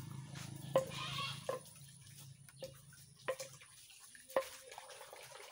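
Irregular sharp knocks or clicks, about six in five seconds, each with a brief ring, over a low steady hum that stops a little after halfway through.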